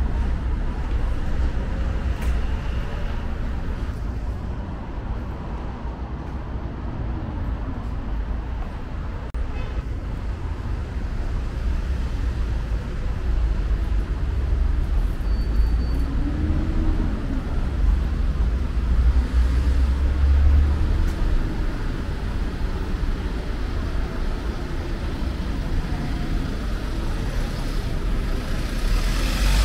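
City street traffic: cars passing with a steady low rumble.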